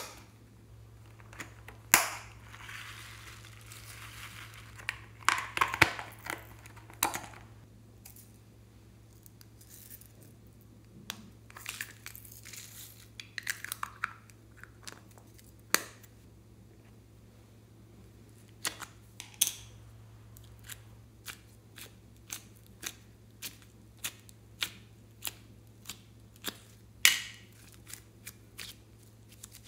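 Small plastic slime and clay containers being handled and opened by hand: sharp clicks and plastic crinkling, with a run of evenly spaced clicks in the second half.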